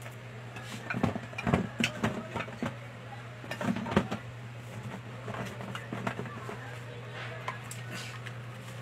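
Scattered clicks, knocks and rustles of packaged goods being handled and set on shelves, busiest about a second in and again near the four-second mark, over a steady low hum.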